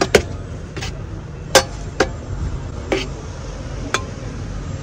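Metal serving spoon clinking against an aluminium cooking pot and a plate while rice is scooped out: about six sharp, separate clinks spread over a few seconds.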